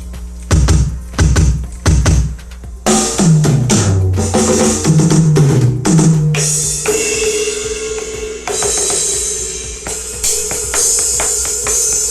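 AMW ED3 electronic drum kit played through a loudspeaker. It opens with a run of bass drum kicks, then a tom fill that steps down in pitch, then cymbal crashes that ring on under further hits.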